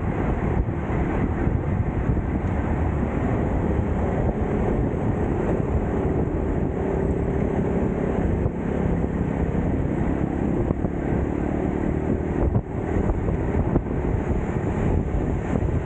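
Wind buffeting the microphone over a steady low rumble of riding along a road.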